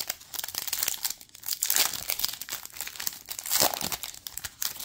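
Foil wrapper of a Panini Contenders football card pack crinkling and tearing as the pack is opened by hand, in a rapid irregular crackle with louder spells about two and three and a half seconds in.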